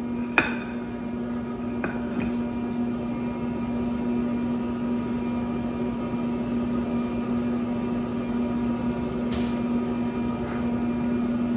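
Steady electric hum, like a kitchen appliance running, holding one low pitch throughout. A sharp click about half a second in and a few faint taps come from the oiled pork chops being handled in a glass dish.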